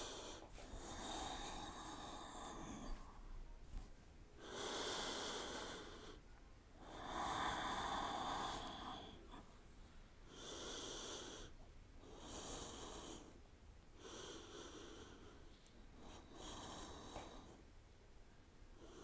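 A person breathing slowly and faintly close to the microphone, about seven breaths in and out, each lasting one to two seconds, while holding a yoga pose.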